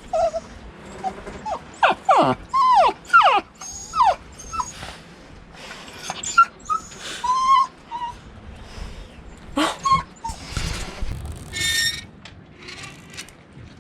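Dog whining and whimpering over and over, short high cries that slide down in pitch.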